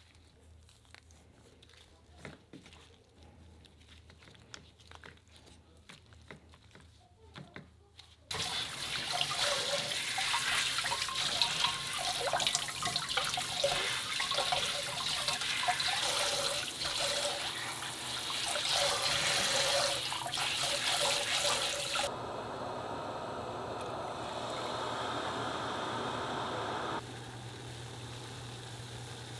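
Faint wet handling of a cleaned cuttlefish for about eight seconds, then a pull-down kitchen faucet's spray starts suddenly and runs hard over the cuttlefish and gloved hands as it is rinsed. The water sound drops after a while, and near the end a pot of water boils with a low hum.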